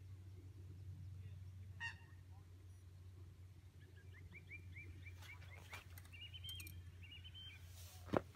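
Faint bird calls: a short call about two seconds in, then a run of about eight quick, evenly spaced chirps, followed by higher warbling notes, over a low steady hum. A single sharp knock near the end is the loudest sound.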